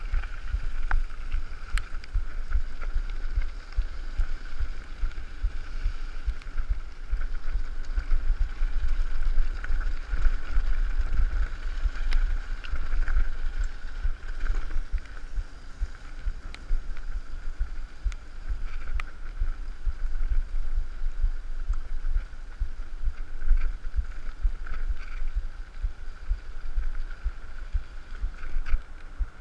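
Mountain bike rolling fast down a gravel track, heard on the rider's camera: wind buffeting the microphone with a heavy, uneven rumble, tyre noise on the gravel, a steady high buzz and scattered clicks and rattles from the bike over bumps.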